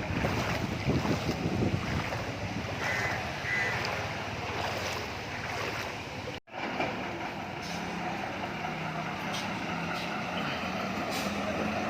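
A bus's diesel engine running, with a steady low hum under road noise. The sound cuts out for an instant about six and a half seconds in.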